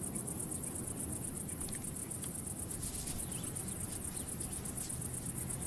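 Insects chirping in a fast, even, high-pitched pulse over a low steady background noise.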